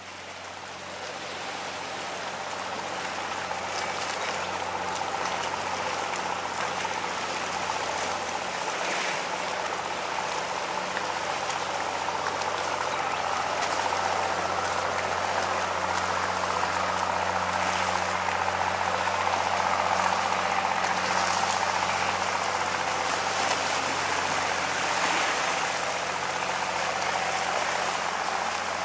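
Steady rushing water, fading in over the first few seconds, with a faint low hum underneath.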